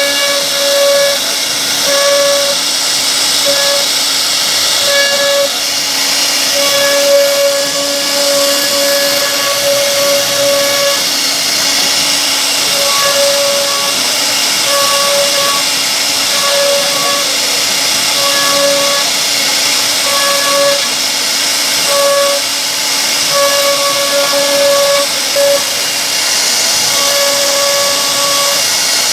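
CNC wood router's spindle running and cutting into solid wood: a loud, steady hiss, with a pitched whine that comes and goes irregularly.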